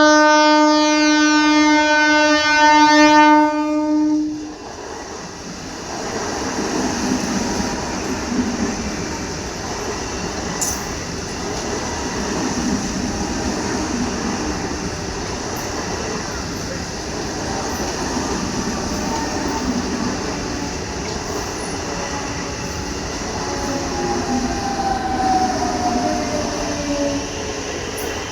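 Indian EMU local train sounding a loud, steady horn that stops about four seconds in, followed by the continuous rumble of the train running past. Near the end a thin squeal slides down in pitch.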